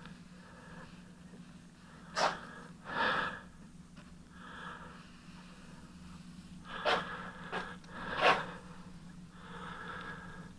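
Soft swishing of a paintbrush laying paint along a wooden window sash over a low steady hum, broken by five short, sharp noises: two close together about two seconds in, then three more around seven to eight seconds in.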